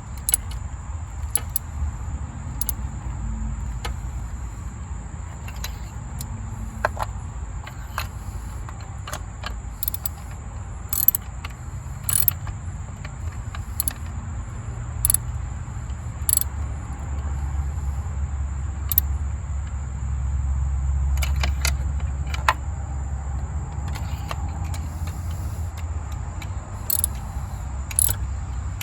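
Sparse, irregular metallic clicks and clinks of hand tools, a ratchet and socket on the spark plugs, over a steady low rumble.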